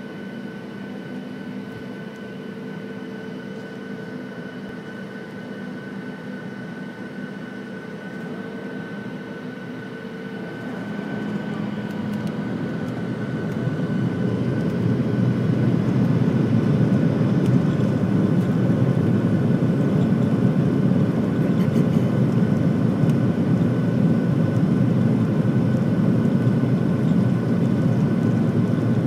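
Boeing 737's CFM56 jet engines heard from inside the passenger cabin. For about ten seconds they hum steadily with a few held tones, then spool up to takeoff thrust: over several seconds the sound grows into a much louder, steady rumble as the plane accelerates down the runway.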